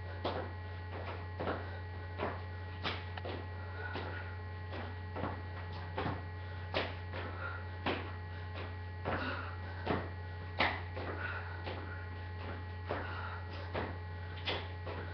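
Sneakers landing and pushing off on a concrete floor during lunges and jump squats: short thuds repeating about every two-thirds of a second, over a steady low electrical hum.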